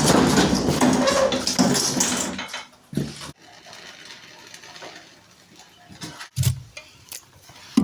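A hand cart (wheelbarrow) being hauled out of soft ground where it had sunk, rattling and clattering for the first couple of seconds, then a few separate knocks as it is set down.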